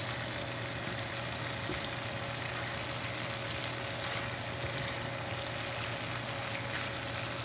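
Marinated chicken pieces frying in oil in a pan: a steady sizzle with fine crackling, the chicken nearly cooked.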